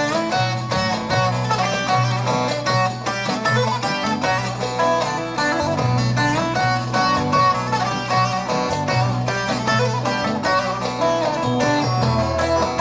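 Instrumental break in a Turkish folk song: a fast melody of plucked-string notes over steady bass notes, with no singing.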